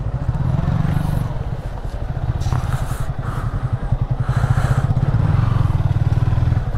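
Sport motorcycle engine running at low speed as the bike rolls along, a steady low throb that swells from about four seconds in and eases off near the end.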